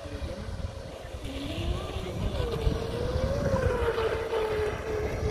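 Motor of a radio-controlled model boat running fast across a pond, a single whining tone that climbs in pitch as it speeds up, then holds steady with a slight wobble. Wind rumbles on the microphone underneath.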